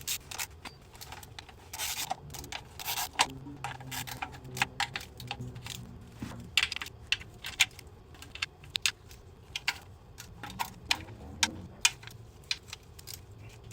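Irregular metallic clicks and clinks of hand tools and bolts being handled against metal.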